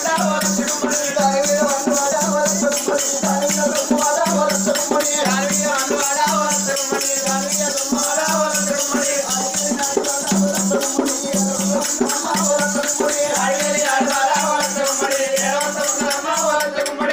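Telangana Oggu Katha folk music: a hand drum keeps a steady beat under continuous jingling rattles, with a wavering melodic line held over the top.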